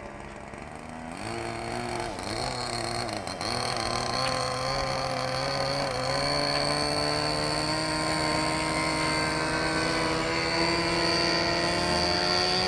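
Radio-controlled model airplane's engine and propeller droning. About a second in it gets louder, its pitch swings up and down a few times, then it holds steady and slowly rises.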